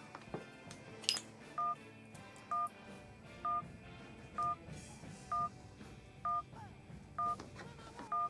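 Short electronic beep of two tones at once, like a phone keypad tone, repeating evenly about once a second from a little over a second in. A single sharp click comes just before the beeping starts.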